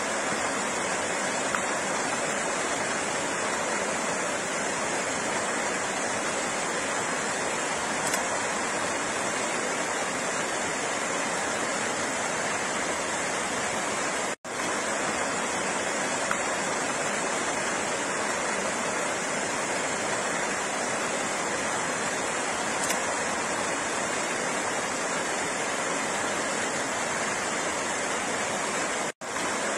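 Flowing water making a steady, even rush, which cuts out for a split second about halfway through and again near the end.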